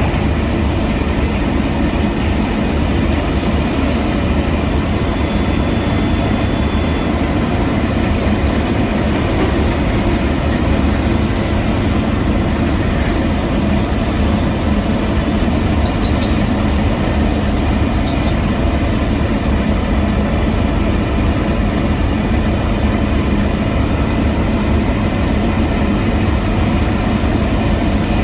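Heavy diesel road-construction machinery running steadily, a loud, unbroken low engine drone.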